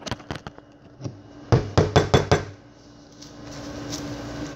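Handling noise on a kitchen counter: four or five sharp knocks in under a second, hard objects bumped against the countertop, then a faint rising rustle near the end. A faint steady hum sits underneath.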